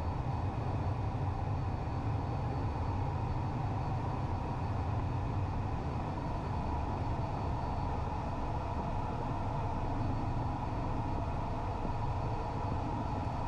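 Cessna Citation I's twin Williams FJ44 turbofans at takeoff power through liftoff and initial climb, heard from inside the cockpit: a steady low rumble and rush of air with a thin, constant high whine.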